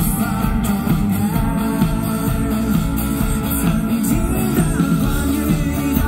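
Live rock band playing through a PA: electric guitar and band accompaniment with a lead vocalist singing into a microphone.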